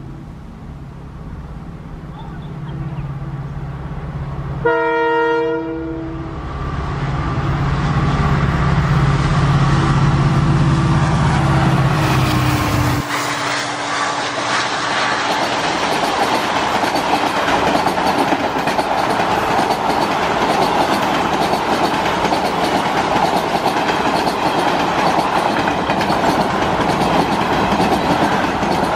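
A WDP-4D diesel locomotive (EMD two-stroke) approaches and passes at speed. Its engine drone grows louder, it sounds one short horn blast about five seconds in, and the engine sound drops off sharply with a falling pitch around thirteen seconds in as the locomotive goes by. After that, the passenger coaches rush past with steady wheel noise and clickety-clack over the rail joints.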